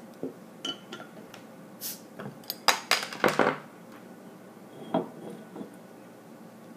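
Metal clicks and clinks of a bottle opener prying the crown cap off a glass beer bottle, the sharpest cluster about three seconds in. One glassy knock about five seconds in.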